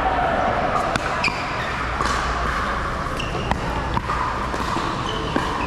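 Pickleball rally: sharp, hollow pops of paddles striking the plastic ball and the ball bouncing on the court, a handful of hits spaced irregularly about a second apart, over low background chatter.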